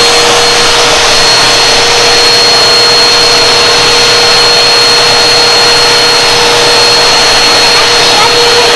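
Bissell PowerForce vacuum cleaner running steadily at full speed, a loud rush of air with a steady high whine from the motor, drawing suction through the hose and dusting-brush attachment.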